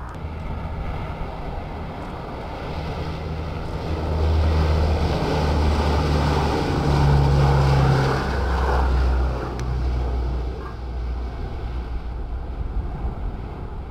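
Four-engine C-130 Hercules turboprop at takeoff power, its engines and propellers making a steady low drone. The drone grows louder about four seconds in and eases off again after about nine seconds.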